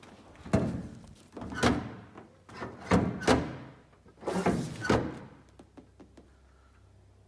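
A series of heavy thunks and knocks, about five in four seconds and some in quick pairs, followed by a few light clicks.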